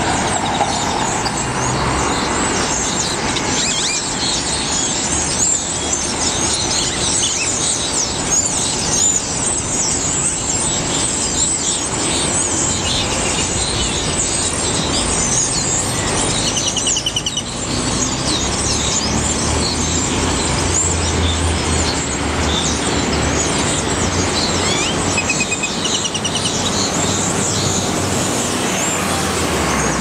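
A flock of birds in a street tree calling all at once: a dense, unbroken chatter of high chirps, over a low rumble of city traffic.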